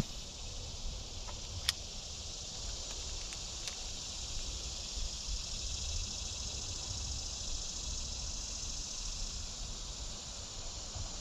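Steady, even drone of summer insects, over a low rumble, with two sharp clicks in the first two seconds.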